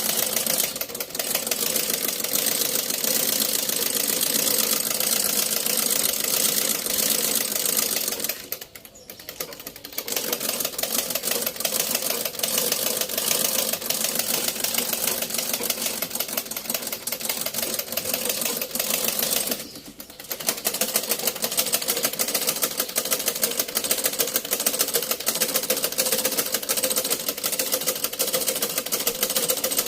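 Antique Singer treadle sewing machine being pedalled: a fast, steady clatter of the treadle and drive mechanism. It almost stops twice, once about a third of the way in and again about two thirds in.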